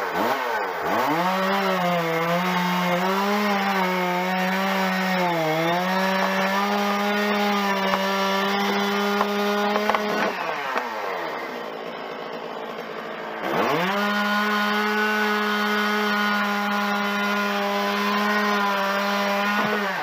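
Stihl MS660 two-stroke chainsaw cutting through a large willow trunk at full throttle, its engine note wavering a little under load. About ten seconds in it drops to idle for a few seconds, then revs up again and cuts steadily until it falls back to idle at the very end as the cut goes through.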